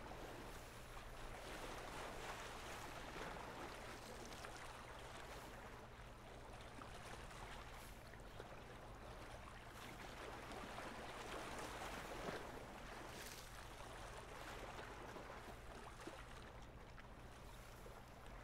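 Faint lapping of small waves on a rocky lakeshore: a soft, even wash of water that swells and eases gently.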